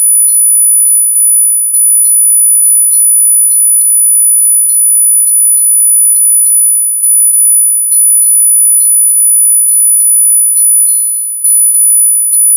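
Synthesized ultra-high-pitched tinnitus-relief tones: one steady, very high electronic tone with fainter high tones pinging over it about twice a second.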